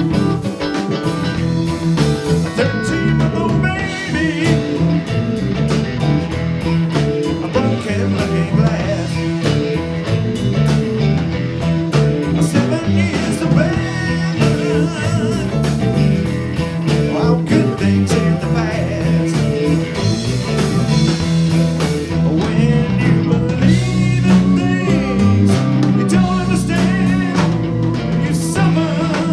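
Live band playing a blues-rock number: Fender Stratocaster-style electric guitar, electric bass, keyboard and drums, with a man singing lead.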